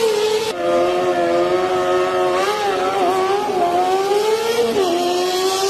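Kawasaki ZX-25R's 250 cc inline-four engine running at high revs, a high-pitched whine whose pitch holds with small rises and falls, then drops sharply about a second before the end and climbs again.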